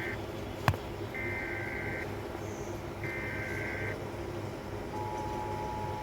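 Emergency Alert System signal: the SAME header's data bursts, the tail of one and then two more, each about a second long with a second's gap. About five seconds in, the steady two-tone attention signal (853 and 960 Hz together) begins. A sharp click sounds just under a second in, over steady low background noise.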